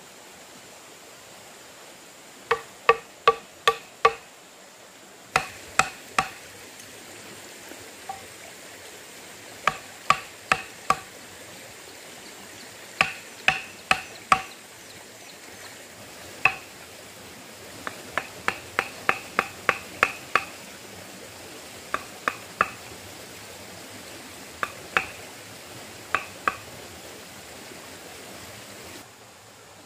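Repeated sharp knocks, each with a short ringing tone, coming in runs of three to six strikes about three a second, with short pauses between the runs, like chopping or hammering.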